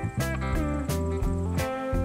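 Background music: guitar over a steady drum beat, about three beats a second.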